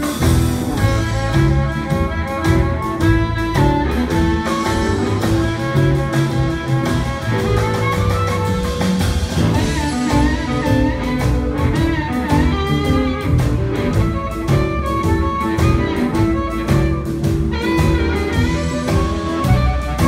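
Live electric blues band playing an instrumental passage: a sustained, bending harmonica lead over electric guitar, bass and drums.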